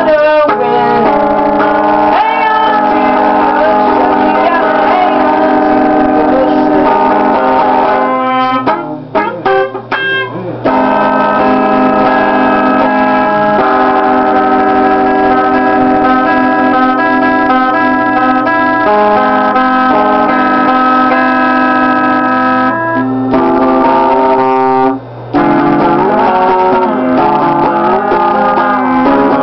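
Instrumental music with guitar and keyboard, held chords, with a brief break and change of texture about a third of the way in.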